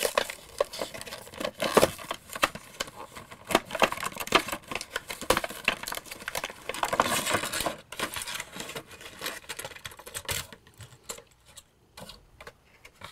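Clear plastic blister of a toy car package being pried and peeled off its cardboard backing card: a dense run of crackles and clicks that thins out after about eight seconds into a few scattered clicks.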